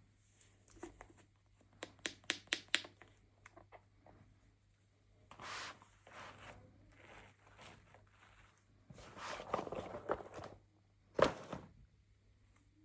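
Hands handling small toy packaging: a quick run of sharp clicks and taps about two seconds in, then bursts of crinkling and rustling, with a louder sharp snap near the end.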